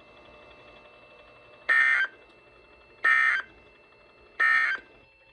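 Three short, identical bursts of warbling digital data tones, about a second and a half apart: the Emergency Alert System end-of-message (EOM) code sent by a NOAA Weather Radio transmitter, marking the end of the severe thunderstorm warning.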